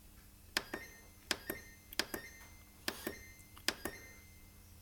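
Omega dishwasher's electronic control panel: a push-button pressed five times in a steady run, each press a double click with a short electronic beep, as it steps through the wash programs.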